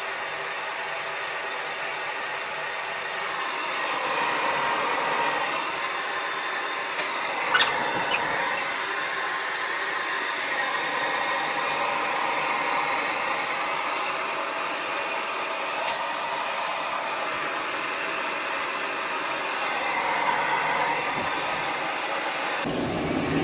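Pet blow dryer running steadily, its pitch wavering slightly as it blows through a Samoyed's thick wet coat, with one sharp click about seven and a half seconds in. It cuts off about a second before the end.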